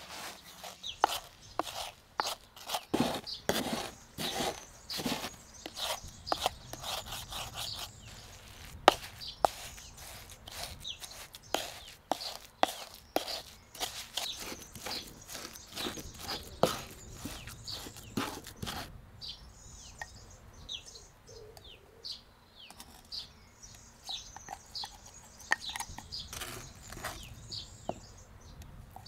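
Wooden pestle pounding and grinding rose petals with sugar in a clay bowl: a dense run of irregular knocks. After about two-thirds of the way through the pounding stops, leaving a few soft knocks and birds chirping.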